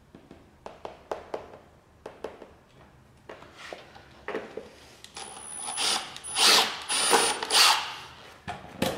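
Light clicks and knocks, then a small cordless drill running in several short bursts from about halfway through, boring a small hole into a laminate floorboard.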